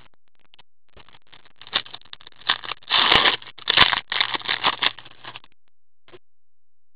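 Plastic hockey card pack wrapper being torn open and crinkled by hand, with the cards sliding out: an irregular crackle that starts about a second in, is loudest in the middle and stops well before the end.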